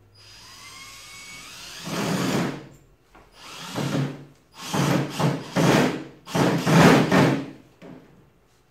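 Cordless drill spinning up with a rising whine, then drilling a hole into a wooden board in several loud bursts.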